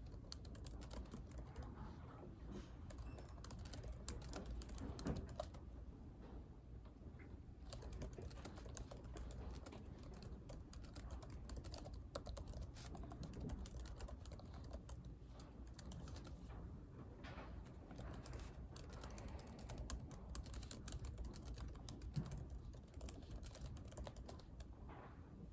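Computer keyboard typing: a steady, irregular stream of soft keystrokes over a low steady hum.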